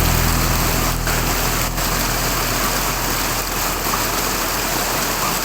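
Steady rushing water of a waterfall. Low tones of music fade out over the first couple of seconds.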